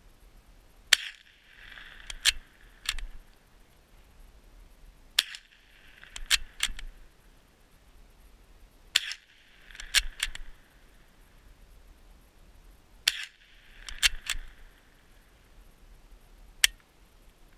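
Cooey Model 60 bolt-action .22 Long Rifle fired five times, about four seconds apart, each crack followed by a brief echo. After each of the first four shots come two or three quick metallic clicks as the bolt is worked to chamber the next round.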